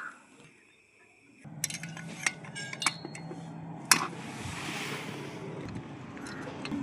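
Metallic clicks and clinks from the parts of a 58 cc chainsaw being handled and turned over by hand, with one sharper knock about four seconds in, over a low steady hum.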